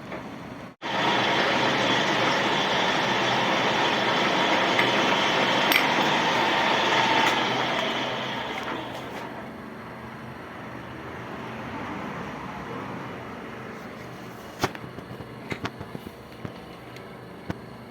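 Metal lathe running and cutting metal, a steady mechanical noise with a faint ringing tone; about eight seconds in the cutting noise fades to a quieter run, and a few sharp clicks follow near the end.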